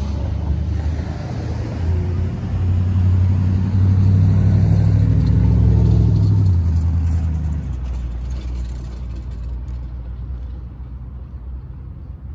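Cars driving past close by. The loudest is an old car's engine, a deep, low rumble that builds from about two seconds in, peaks around four to six seconds and fades away after about seven seconds.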